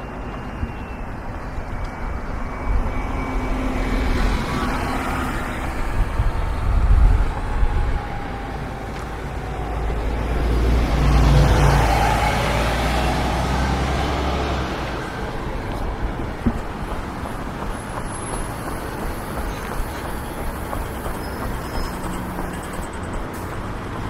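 Street traffic: motor vehicles passing. One gives a louder, deeper rumble that swells and fades between about ten and fifteen seconds in.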